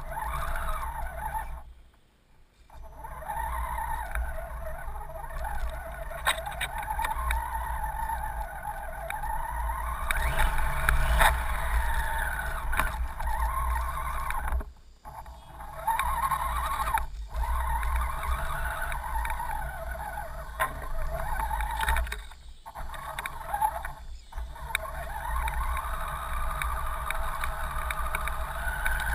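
Electric motor and gear drivetrain of an Axial SCX10 RC crawler whining, rising and falling in pitch with the throttle, as it churns through floodwater with splashing. The sound is picked up by a camera mounted on the truck and breaks off briefly several times.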